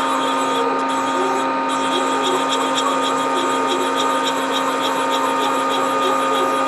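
JMT CNC lathe running with a steady whine of several tones while its X axis is jogged from the handheld pendant. From about two seconds in there is a light, even ticking about five times a second.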